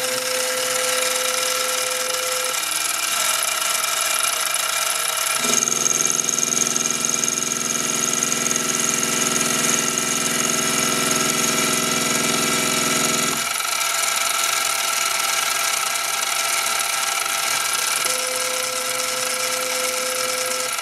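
Mini mill's spindle motor running steadily with a high whine. From about five seconds in, a stepper motor of the Arduino-driven CNC conversion adds a steady low multi-tone hum while it drives a milling pass, then cuts off abruptly about eight seconds later.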